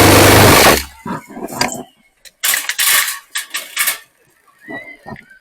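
Loud rushing noise with a low hum that cuts off just under a second in, then irregular bursts of rattling and clattering.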